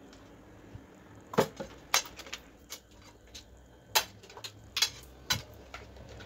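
Handling noise: a handful of sharp, irregular clicks and knocks as a plastic Bluetooth speaker and a power bank are moved and set down on a hard tabletop and a USB cable is handled.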